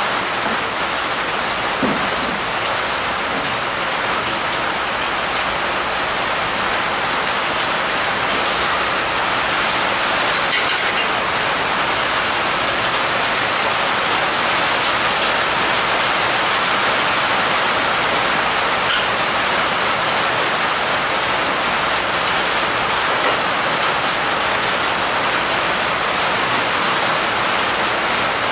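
Steady, loud rushing hiss with no pitch or rhythm, unchanging throughout, with a few faint clicks of metal engine parts being handled.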